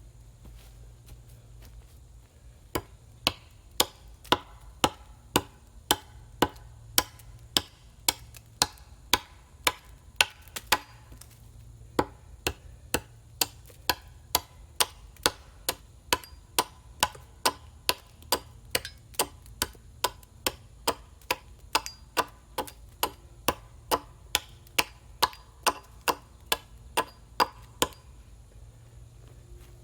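Steady rhythmic blows from a hand tool, about two strikes a second, each sharp with a short ring. The striking keeps up for most of the stretch, with one brief pause partway through.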